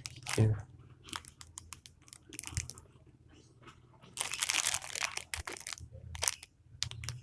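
Packaging being handled: scattered small clicks and crinkling, with a louder burst of crinkling about four seconds in.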